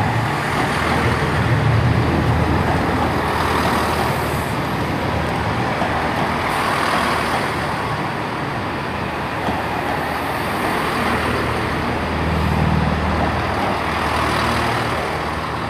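Two coupled Class 165 Turbo diesel multiple units drawing slowly past into the platform: a steady low diesel engine drone under wheel-and-rail running noise, the engine note swelling briefly near the start and again about three quarters of the way through.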